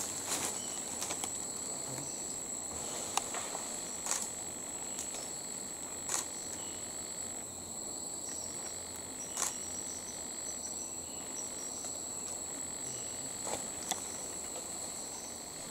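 Rainforest insect chorus: a steady high-pitched drone with a second, lower steady tone beneath it. Short, repeated high chirps come in now and then. About eight brief sharp clicks are scattered through it.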